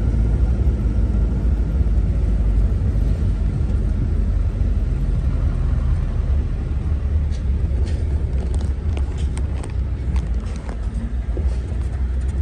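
Steady low road and engine rumble inside a moving car, with a few faint light clicks in the second half.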